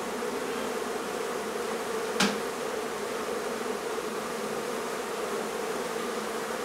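Honey bees buzzing steadily, a dense hum of many bees around a hive trying to cool it in the heat. One short sharp click about two seconds in.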